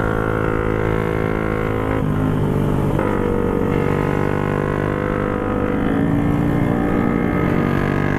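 Motorcycle engine running at steady revs while riding, a droning note whose pitch shifts about two seconds in and then holds.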